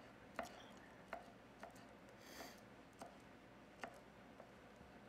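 Kitchen knife slicing a soft avocado on a wooden cutting board: about seven faint, irregular taps as the blade goes through and touches the board.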